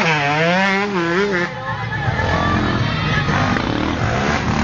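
Enduro dirt-bike engine revving up and down, its pitch swinging repeatedly as the throttle is worked over rough ground. It is loudest in the first second and a half, then fades to a fainter engine hum over background noise.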